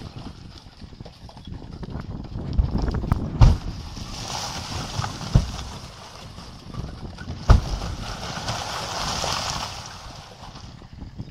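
Rock-quarry blasting charges going off one by one: three sharp booms about two seconds apart, over a rushing noise that swells in the middle.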